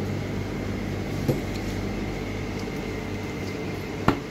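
Steady hum of a shop's refrigerated glass-door display fridges, with a soft knock about a second in and a sharper click near the end.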